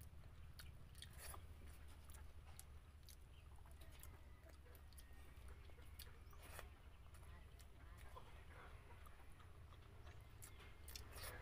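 Faint close-up chewing and mouth clicks while eating, over a steady low hum.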